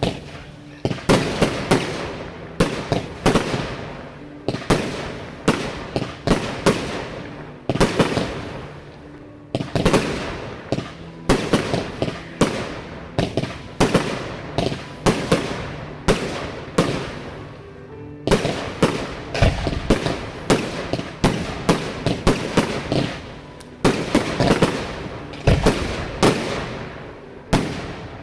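Fireworks bursting in rapid volleys: sharp bangs several times a second, each with a short crackling tail, and a couple of deeper booms in the second half.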